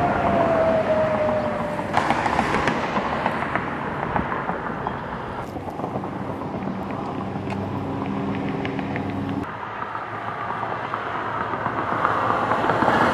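Vehicle engines running outdoors over steady traffic-like noise. In the first two seconds there is a falling whine, and an engine hum holds steady until it stops suddenly about two-thirds of the way in.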